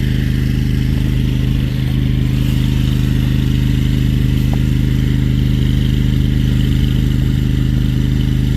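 Hydro jetter's engine and high-pressure pump running steadily at constant speed, a loud even hum.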